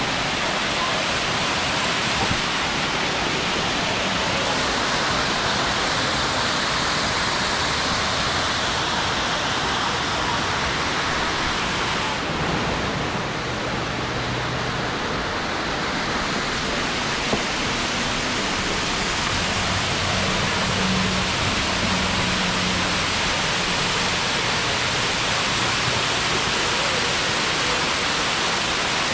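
Waterfall pouring over stepped rock ledges at close range: a steady, full rush of falling and splashing water, briefly a little duller about twelve seconds in.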